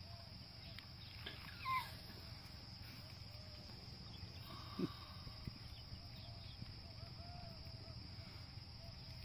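A goat kid gives one short distress cry, falling in pitch, about two seconds in as a Komodo dragon seizes it. A dull thump comes about halfway, over a faint steady hum.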